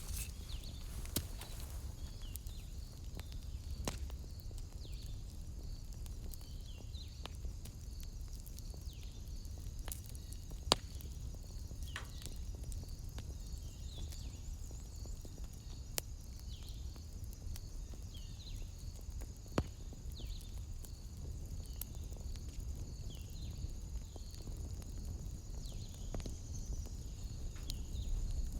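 Wood fire crackling in a fireplace, with scattered sharp pops, the loudest a little past ten seconds in, over a low rumble. A steady high-pitched trill with evenly repeating pulses runs underneath.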